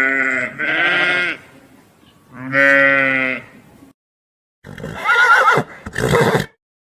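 Three long, wavering bleats from a farm animal, the last the longest. After a brief silence, a harsher, raspy animal call with a wobbling pitch begins near the end.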